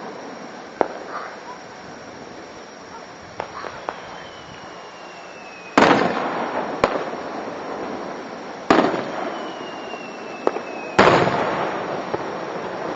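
Aerial fireworks display: three heavy booms, each dying away in a long echoing rumble, about 6, 9 and 11 seconds in, with smaller sharp cracks between them. A falling whistle runs for a second or two before the booms at about 6 and 11 seconds.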